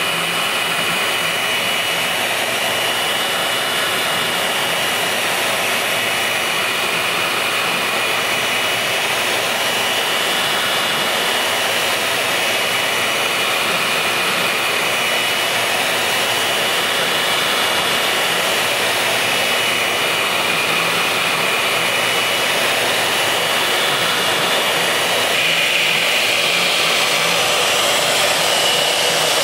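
ShopBot CNC router spindle running at 16,000 RPM with a 1/4-inch roundnose bit carving pink foam, with its dust extraction running: a steady high whine over a loud rush of air.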